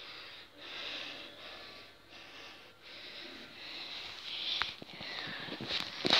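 A person breathing fast and hard close to the microphone, in short hissy breaths about one every two-thirds of a second, with a few clicks of handling noise near the end.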